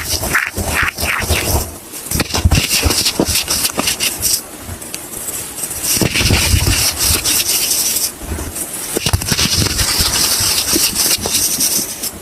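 Bar soap being broken and crushed by hand: a dense crackling and crunching with scraping, and low thumps as pieces are squeezed, softer for a couple of seconds near the middle.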